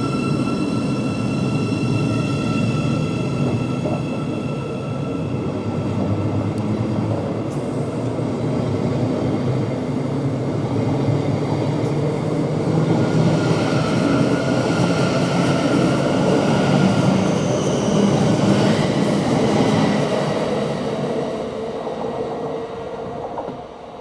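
Thameslink Class 700 electric multiple unit pulling away from the platform. Its traction motors whine in several steady tones that fade out, then a new whine rises in pitch about halfway through as the train gathers speed, over continuous wheel-on-rail rumble. The noise drops away sharply just before the end.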